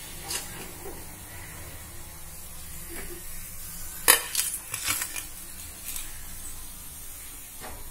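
Wire spider skimmer clinking and tapping against the frying pan and plate as deep-fried veg lollipops are lifted out of the oil and set down. The clicks come singly, with the loudest cluster about four seconds in, over a faint steady hiss of frying oil.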